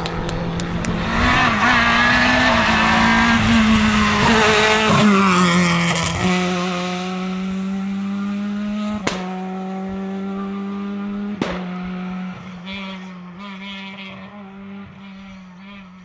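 Rally cars at racing speed, engines revving hard and shifting in pitch through the first six seconds, then a steadier engine note that fades near the end. Two sharp cracks come about nine and eleven seconds in.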